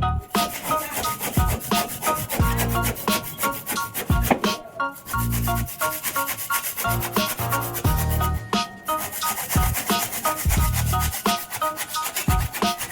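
Rapid, repeated rubbing strokes over background music that carries short melodic notes and a recurring bass.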